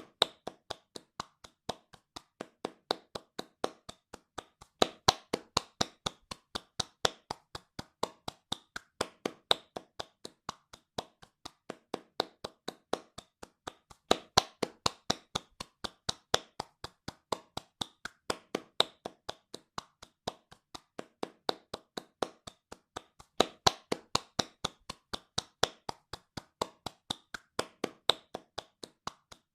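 Hands clapping fast and evenly, about three claps a second, some claps louder than others.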